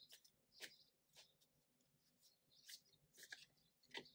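Faint swishes and soft taps of a deck of oracle cards being shuffled by hand, the cards sliding against one another in a handful of irregular strokes.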